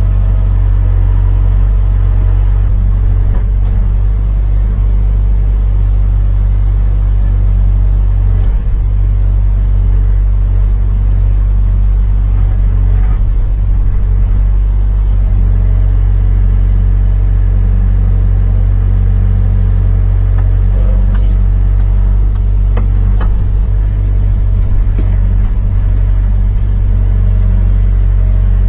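Sunward 90UF excavator's diesel engine running at a steady speed with a deep, even drone, with a few faint clicks over it.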